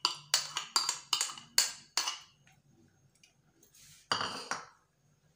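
Metal spoon tapping against a ceramic plate to knock chopped coriander off it: about six sharp, briefly ringing taps, a little under three a second, then a short scrape about four seconds in.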